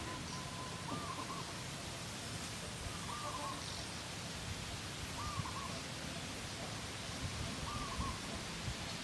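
A bird's short call, repeated four times about every two seconds, over a steady outdoor hiss.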